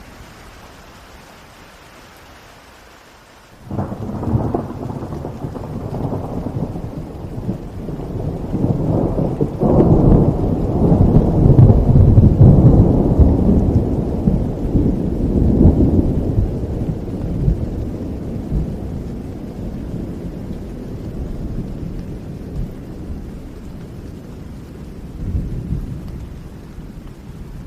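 Steady rain falling. About four seconds in, a loud clap of thunder breaks in suddenly and rolls on as a deep rumble, swelling for several seconds before slowly dying away, with a smaller rumble near the end.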